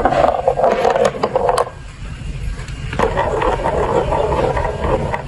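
Marbles rolling and clattering through a plastic marble run track, a dense rattle full of small clicks. It stops for about a second around two seconds in, then starts again.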